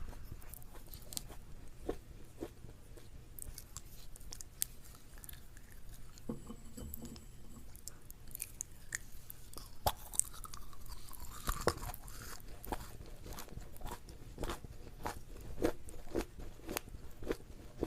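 Close-up chewing of crunchy food: irregular crisp crunches and crackles while the mouth works.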